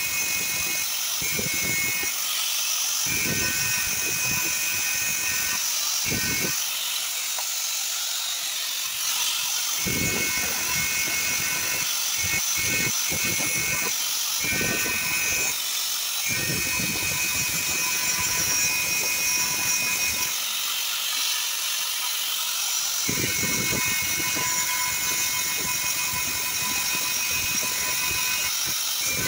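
Angle grinder running steadily with a high whine while a flat steel bar is held against its spinning grinding wheel. The grinding noise swells and eases many times as the bar is pressed on and worked against the wheel.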